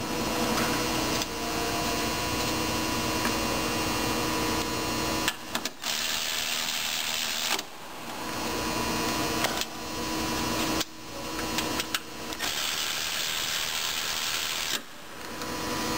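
Milwaukee M12 3/8-inch cordless ratchet's electric motor running in long runs of steady whirring, stopping briefly several times before starting again.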